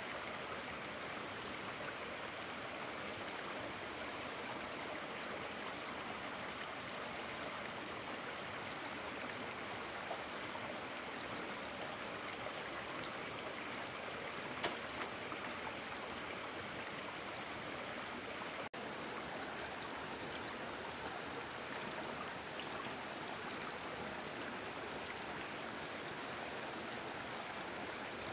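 Steady rush of a flowing stream, with a single sharp click about fifteen seconds in.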